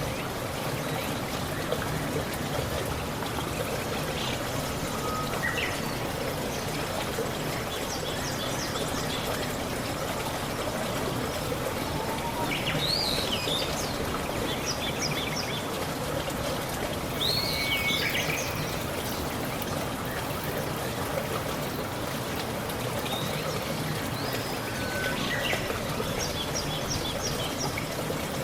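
Running water trickling steadily, with birds chirping every few seconds over it in short calls, quick upward sweeps and brief runs of rapid repeated notes.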